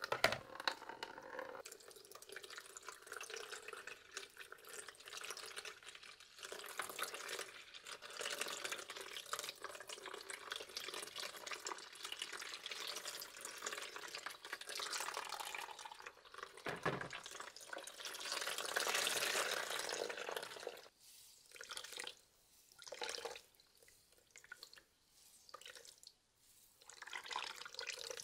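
Green plant juice trickling and splashing in a thin stream through a cloth-lined bamboo basket into a plastic basin of liquid. After about 20 seconds it breaks into short spurts and drips as the cloth is squeezed by hand.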